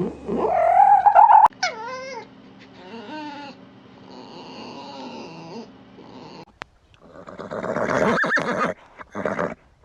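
A cat caterwauling: drawn-out, pitched calls that rise and waver, then a harsher, noisier call near the end.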